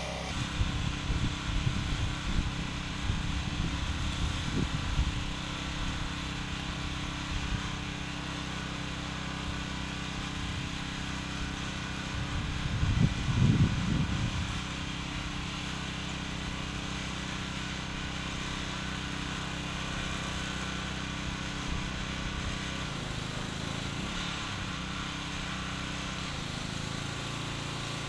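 Steady low motor-like hum, with irregular low rumbling bursts over the first five seconds and again about thirteen seconds in, loudest near thirteen seconds.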